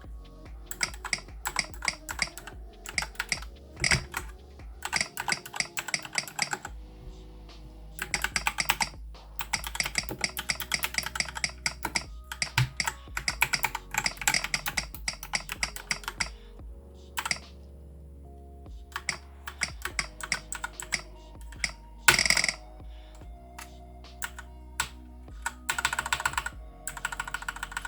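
Typing on a Keychron K4 V2 mechanical keyboard fitted with Gateron Yellow linear switches, in quick runs of keystrokes separated by short pauses.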